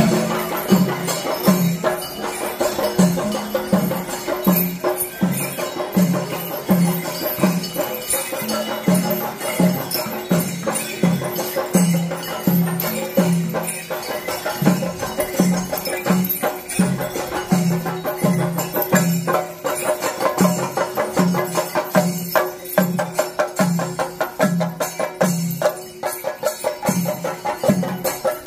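Kerala temple-festival percussion ensemble playing: drums beaten in a steady rhythm of about two strokes a second, with metallic cymbal clashes and a held steady tone over them.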